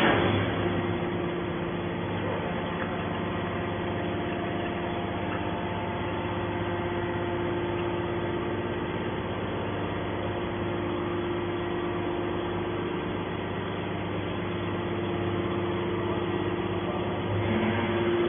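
Hydraulic metal baler's power unit running steadily, a constant machine hum with a steady tone, after a single sharp metallic clank at the start.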